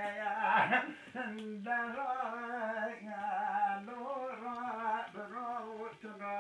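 A man singing a Kurdish uzun hava, a free-rhythm long song: long held notes that waver and turn in ornamented runs, with short breaks between phrases.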